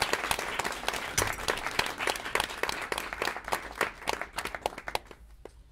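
Small audience applauding, the claps thinning out and dying away about five seconds in.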